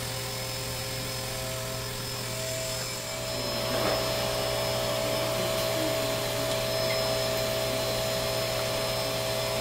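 Electric hair clippers running with a steady buzz while cutting a toddler's hair, a little louder from about four seconds in.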